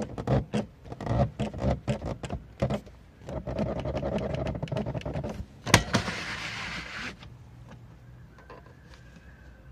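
The luggage-compartment roller cover of a Seat Leon X-perience ST estate creaks and clicks in quick, irregular strokes: the unwanted squeak of the cover. Then comes a steady sliding sound, a sharp snap about halfway through, and a brief hissing rush.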